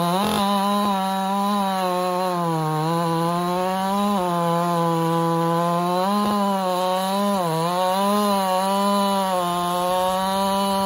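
Ported Husqvarna 592 XP two-stroke chainsaw with a 36-inch bar and full-comp chisel chain, running flat out while cutting through a large log. Its engine pitch dips and recovers a few times as the chain loads up in the wood.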